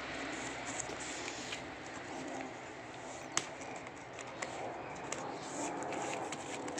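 Cardboard shipping box being opened by hand: rustling and scraping of the cardboard flaps and packing tape, with scattered small clicks and one sharp snap about three and a half seconds in.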